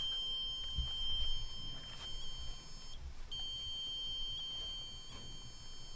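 Steady high-pitched electronic tone from a ghost-hunting proximity sensor, the device built into a stuffed toy dog, sounding without a break apart from a short gap about three seconds in: the sensor has been set off. Faint low thumps sound underneath.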